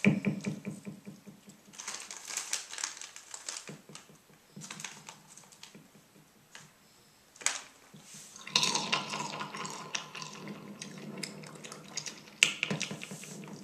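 Cool Ranch Doritos chips being crunched close to a karaoke microphone: dense crackly snapping in several bouts, with a longer run in the second half and quieter gaps between.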